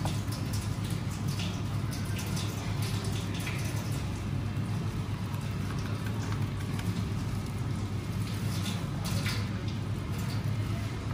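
Long knife cutting through a salmon head and collar on a plastic cutting board: scattered wet taps, clicks and scrapes over a steady low hum.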